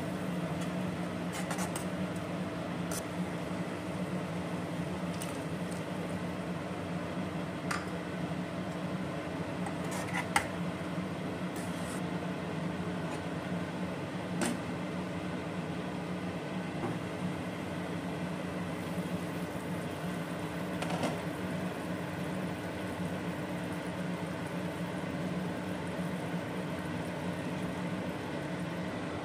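A steady low mechanical hum, with a few light metallic clinks of a ladle against a steel cooking pot as a curry is stirred.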